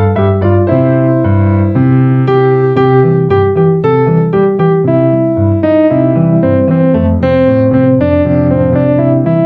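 Background piano music: a steady flow of notes and held chords.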